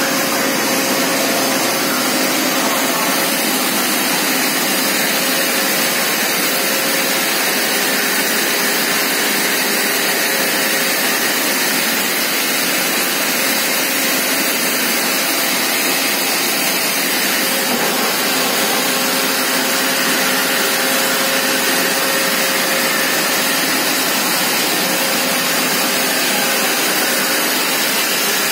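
Ferraro felt-type open width compactor running: a steady, even whir and hiss with faint constant hums underneath.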